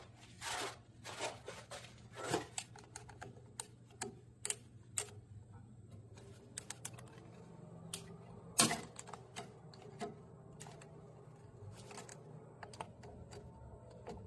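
Irregular metallic clicks and taps of hand tools working on a tractor's PTO shaft housing, with one louder knock about eight and a half seconds in. A faint steady hum runs underneath.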